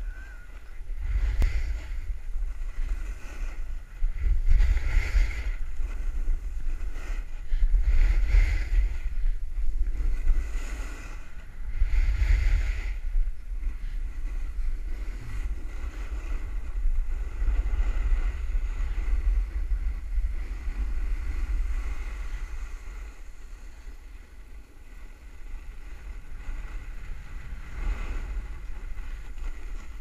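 Wind buffeting a head-mounted GoPro's microphone during a snowboard run, with the board's edge scraping and hissing over packed snow in swells every few seconds as it turns.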